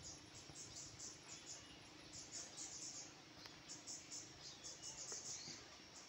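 Faint, high-pitched insect chirping: short repeated chirps, about four a second, in runs with short gaps.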